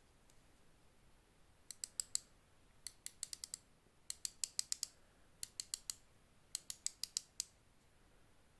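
Small sharp clicks from a Zeppelin Night Cruise automatic watch with a Miyota 9015 movement, its crown being turned in short strokes: five quick runs of four to seven clicks with brief pauses between them.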